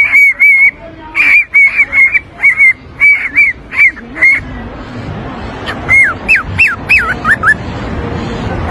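Lutino cockatiel calling. It starts with a quick run of about a dozen short, clipped whistled chirps. After a short pause come a few longer notes that rise and fall.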